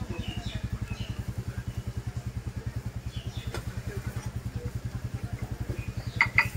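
An engine idling nearby with a steady, fast low thudding of about ten beats a second. Two sharp clicks come near the end.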